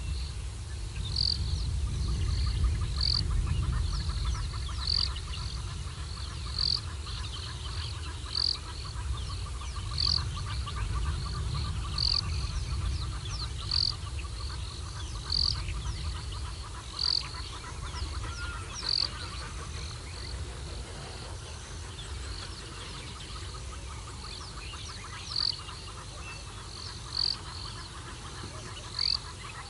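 Dawn chorus at a bushveld waterhole: a short high call repeats about every two seconds, with a pause past the middle, over many faint bird chirps. A fast rattling trill runs through the first two-thirds, and a low wind rumble on the microphone eases after the first quarter.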